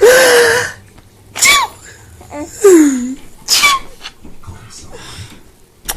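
Four sneezes in quick succession, each a short sharp 'choo'. The first comes right at the start and is the loudest; the others follow roughly a second apart.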